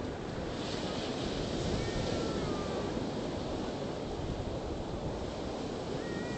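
Ocean surf breaking and washing onto the beach, a steady rush of water, with wind buffeting the microphone; a brief brighter hiss of a breaking wave about a second in.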